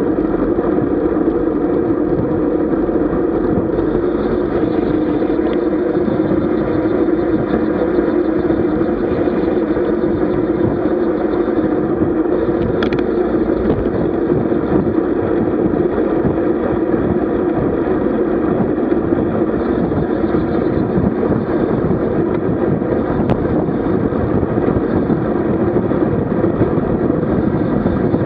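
Steady, dull rumble of wind and road noise on a camera carried along on a road bike ride, with one brief click near the middle.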